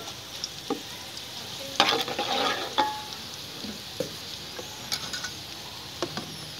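Browned sliced onions sizzling in ghee in a large aluminium pot, a steady frying hiss. A metal ladle clinks and scrapes against the pot now and then, most busily about two seconds in.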